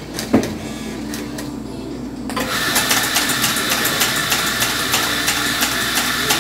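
A single knock, then about two seconds in an electric coffee grinder starts and runs steadily: a motor whine with a rapid crackle of beans going through the burrs.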